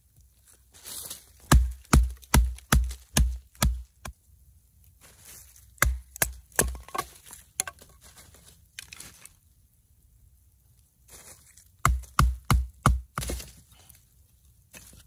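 A knife driven through a short length of firewood by blows of a wooden baton on its spine (batoning), splitting the wood. The blows come in three runs of quick, sharp knocks with a dull thud, two to three a second.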